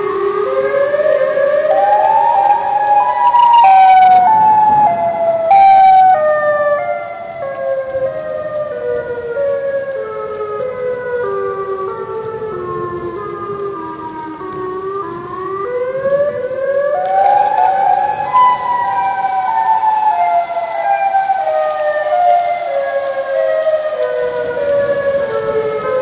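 Outdoor tornado warning siren wailing. Its pitch climbs for about four seconds, then falls slowly for about ten, climbs again about fifteen seconds in, and slowly falls once more. Two sharp knocks come at about four and six seconds in.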